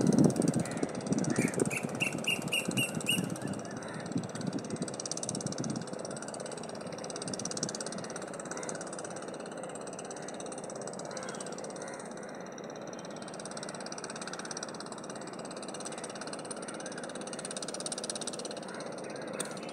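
Outdoor ambience: a low rumble that fades out over the first six seconds, a quick run of about six short rising chirps about two seconds in, then a steady hiss.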